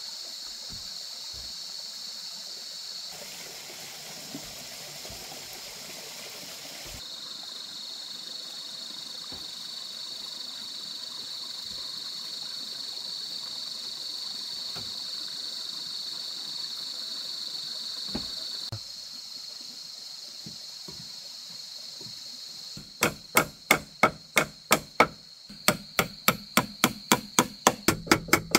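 Steady high-pitched drone of forest insects, then, for the last few seconds, two runs of rapid hammer blows at about four a second.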